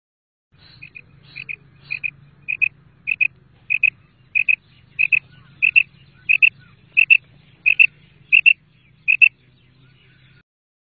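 Female quail calling: a steady series of about fourteen short, high double notes, repeated roughly every two-thirds of a second, louder after the first few, over a faint low hum.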